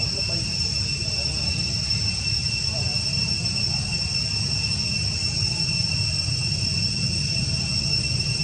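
Steady insect chorus: an unbroken high whine held at two pitches, over a constant low rumble.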